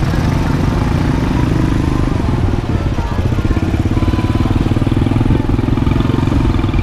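Motorcycle engine running close by at low speed, a steady low engine note with a fast even pulse, with faint voices of people along the street behind it.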